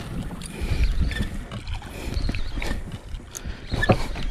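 Wind rumbling on the microphone and water sloshing around a small outrigger boat at sea, with scattered short knocks and clicks.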